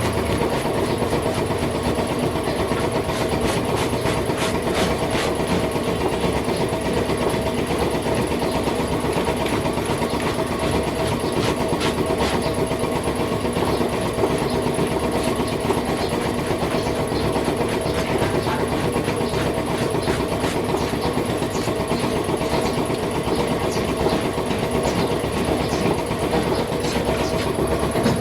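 A machine motor running steadily, with many small irregular clicks over it.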